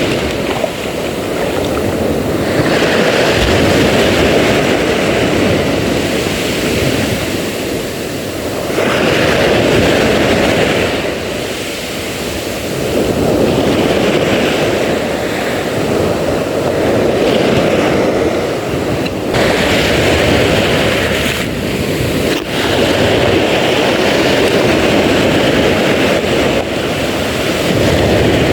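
Wind blowing across the microphone over sea waves, a loud rushing noise that swells and eases every few seconds.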